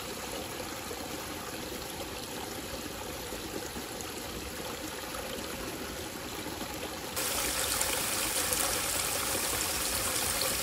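A stream running steadily, its rush growing louder and brighter about seven seconds in.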